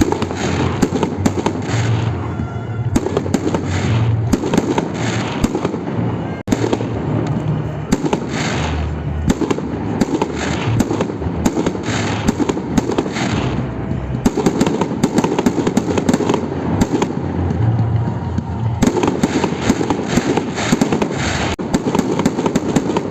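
Victory Day fireworks salute: a continuous barrage of rapid, sharp cracks layered over low booms, with hardly a pause.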